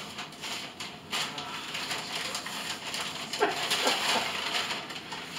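Brown paper bag rustling and crinkling as it is handled and opened, dense crackling from about a second in.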